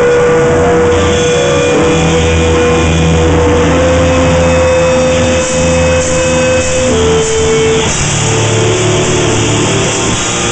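Live rock band playing loud, a distorted electric guitar holding long sustained notes over bass and drums; the held note steps up in pitch about four seconds in and drops again near seven seconds.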